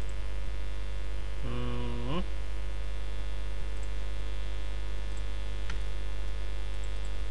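Steady electrical mains hum in the recording. About a second and a half in, a man gives a short voiced "mm" whose pitch rises at the end, and a faint click comes near the end.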